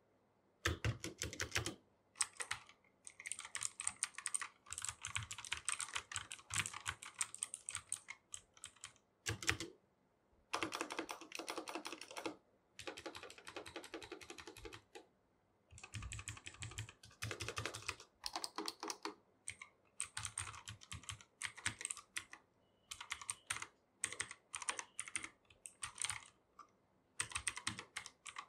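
Typing on an Ant Esports MK1200 mini 60% mechanical keyboard with clicky blue switches and plastic keycaps, in fast runs of key presses broken by short pauses.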